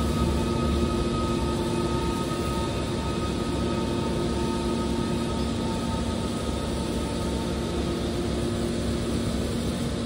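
Hydraulic metal baler's power unit running steadily, its motor and pump giving an even hum with a few steady tones.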